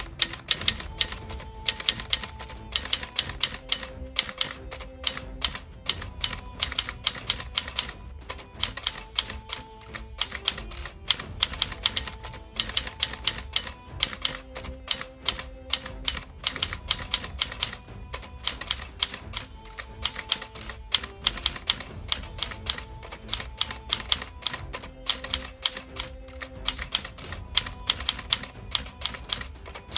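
Typewriter keys clacking in quick, irregular runs, the sound of text being typed out, over background music with soft held notes.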